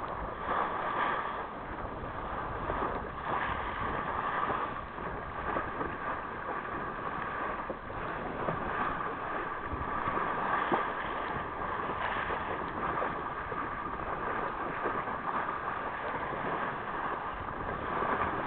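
Motorboat underway: a steady engine hum under water rushing along the hull, with wind buffeting the microphone.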